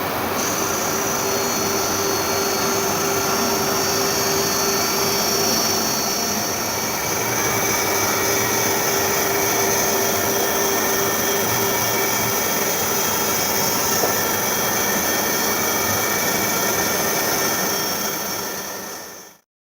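Rubber roller grooving and grinding machine running: a steady mechanical rush with a constant high-pitched whine and a lower hum, which fades and stops abruptly near the end.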